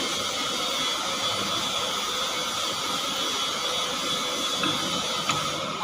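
An engine running steadily at a constant speed, a continuous mechanical noise with a hiss.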